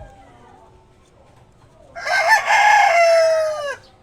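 A rooster crowing once, loud, starting about two seconds in and lasting nearly two seconds, its pitch dropping at the end.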